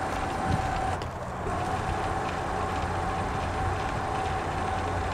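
Pickup truck engine idling steadily: a continuous low rumble with a faint steady whine over it.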